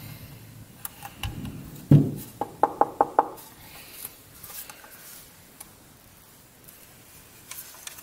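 A metal-cased keyboard being handled and moved: a heavy thump about two seconds in, then a quick run of about five ringing knocks, with lighter clicks and rubbing around them.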